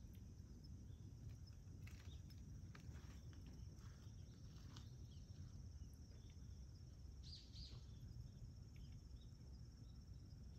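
Faint, steady high-pitched insect chirring over a low rumble, with a few soft clicks and brief chirps scattered through.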